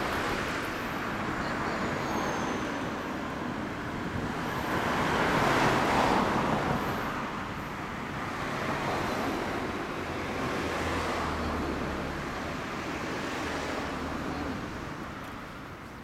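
Motor vehicle noise rising and falling in several swells, loudest about six seconds in.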